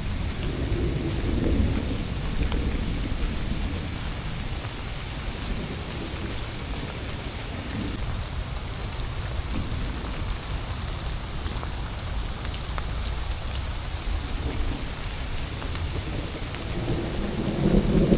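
Steady rain falling, with scattered sharp drop ticks on top and a low rumble underneath that swells near the end.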